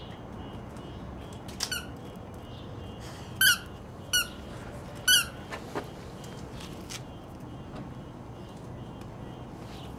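A puppy's squeaky rubber ball squeezed in its jaws, giving four short, high squeaks with a wavering pitch over a few seconds.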